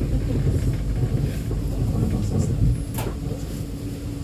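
E2 class tram's interior, rolling slowly: a low, steady rumble from the running gear with a steady hum over it, and one sharp clunk about three seconds in.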